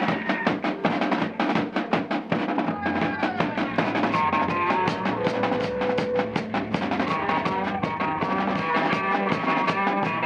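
Rock band playing an instrumental stretch of a song: a drum kit keeps a fast, steady beat under held, pitched instrument notes.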